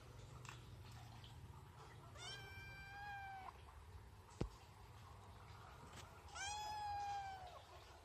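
A kitten meowing twice, two drawn-out meows a few seconds apart, with a single sharp click between them.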